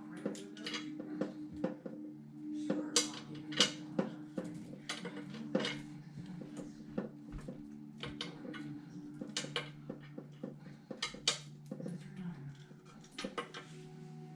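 Irregular clicks, taps and clinks of small hard computer parts and cable connectors being handled and fitted during a PC build, over a steady low hum.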